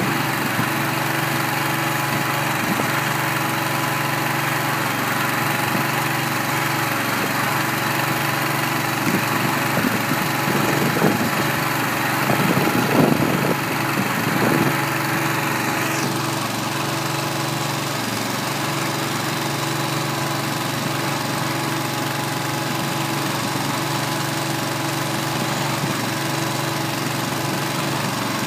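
Kohler 25 hp gas engine running steadily, driving a small 25-cubic-foot feed mixer as its drum tumbles a load of hay. There are a few louder, rougher moments about halfway through.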